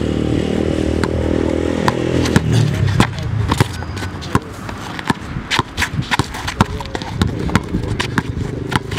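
A basketball being dribbled on a paved brick court, thumping about twice a second from about two and a half seconds in. Before that a motor vehicle's engine hums steadily, then drops in pitch and fades.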